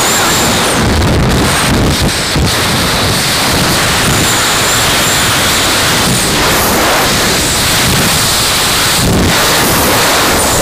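Airflow rushing over the camera microphone of a paraglider in flight: loud, steady wind noise.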